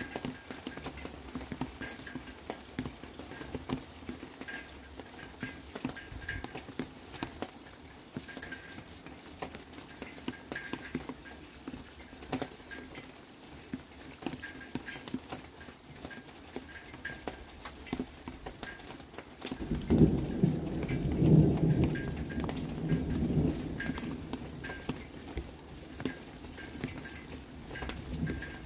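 Thunderstorm: rain pattering and dripping, with a roll of thunder that starts suddenly about two-thirds of the way through, rumbles deep and loud for a few seconds, then fades.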